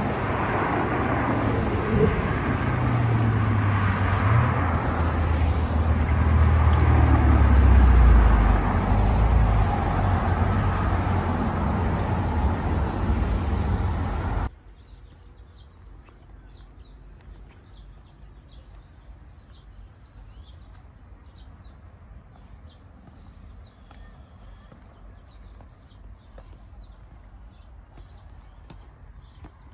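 A loud rumbling noise with a low drone, building to a peak about eight seconds in and cut off abruptly halfway through. Then, much quieter, small birds chirping rapidly and repeatedly.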